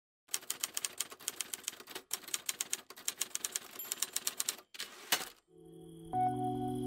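Typewriter sound effect: a rapid run of key clicks with two short pauses and a louder final strike. About five and a half seconds in, a song's instrumental intro begins with sustained chords.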